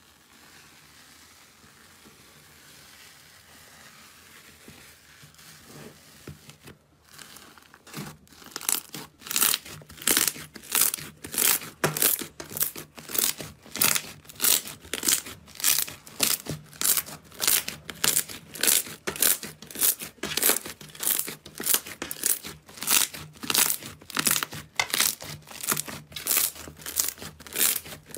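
Hands rhythmically pressing and kneading a large mass of fluffy slime, each press giving a loud crackling, tearing sound, about two a second. Before that, a faint steady crackle as fingers swirl through a tub of foamy slime.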